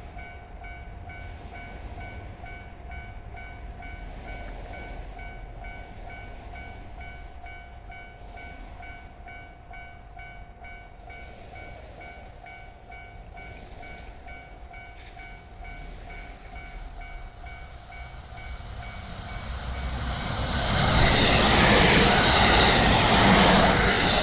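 Japanese level crossing warning bell ringing in a steady repeating pattern. About twenty seconds in, a train passes over the crossing, and its noise swells to drown out the bell.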